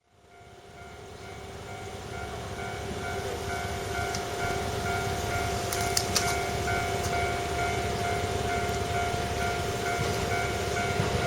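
Railway level-crossing warning bell ringing in a steady repeating pattern, with the noise of an approaching train growing louder underneath.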